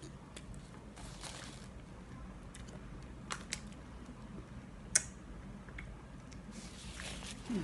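A person eating noodles by hand: quiet chewing and wet mouth clicks, with a sharper click about five seconds in and a couple of short hissy noises.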